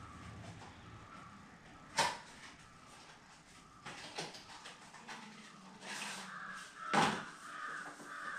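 Two sharp knocks, about two seconds and seven seconds in, with a few lighter clicks between them. Repeated bird calls begin about six seconds in.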